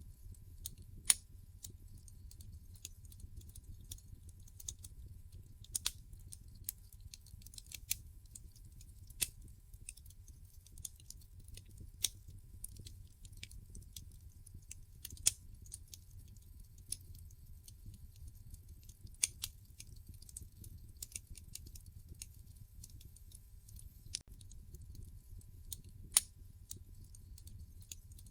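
Wood fire burning in a fireplace: irregular sharp crackles and pops every second or two, with a few louder pops standing out, over a steady low rumble.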